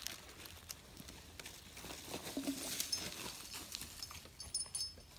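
Faint footsteps and scuffing on a dirt path, soft irregular taps. A few short high chirps come near the end.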